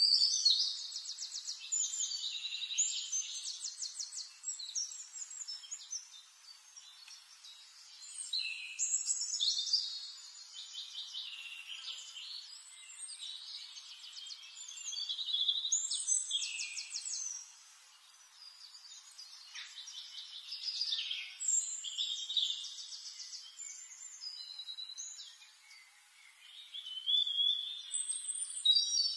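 Songbird singing: phrases of high chirps and rapid trills, a new phrase every few seconds.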